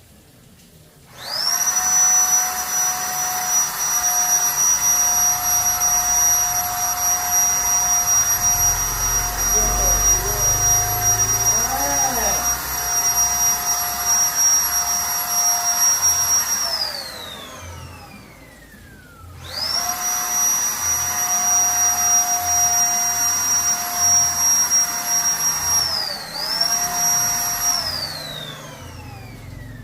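Zipper electric paint spray gun's motor running with a steady high whine. It runs for about fifteen seconds and winds down with a falling whine, starts again a couple of seconds later, dips briefly once, and winds down again near the end.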